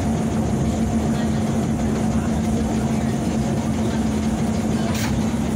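A vintage BMT AB Standard subway car running along the track, heard from inside the car: a steady rumble of wheels on rail with a constant hum underneath. A single sharp click comes about five seconds in.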